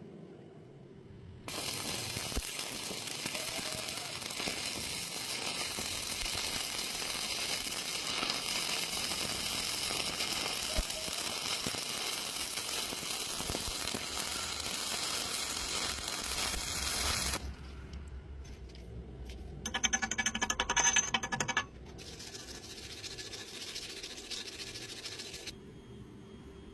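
Electric arc welding: a steady crackling hiss that starts suddenly about a second and a half in and cuts off abruptly some sixteen seconds later. A few seconds after it stops comes a brief, louder rapid rattle.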